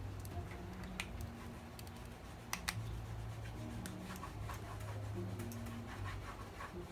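Small sharp clicks and light scratching of tools and parts handled during iPhone 6 Plus reassembly, including two quick clicks about two and a half seconds in, over a low background hum.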